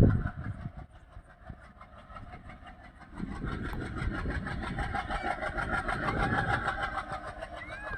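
A train running past: a steady low rumble with a hum of several steady tones that builds about three seconds in. Brief high squeals come near the end, after a loud thump at the very start.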